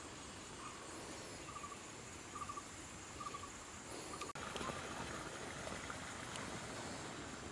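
Faint outdoor background noise with a short, high chirp repeating about once a second, the call of a small creature such as an insect or bird. The sound drops out briefly with a click about four seconds in.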